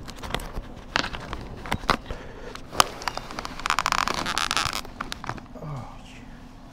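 A series of sharp clicks and knocks, with a rasping noise lasting about a second near the middle.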